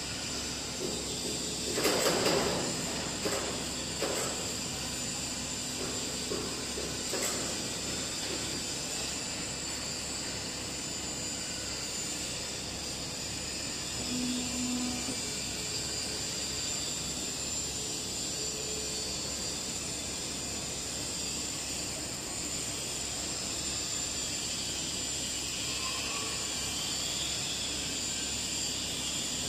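Four-roll CNC plate rolling machine running with a steady hiss, with a few sharp knocks about two to four seconds in and again near seven seconds, and a brief low hum about fourteen seconds in.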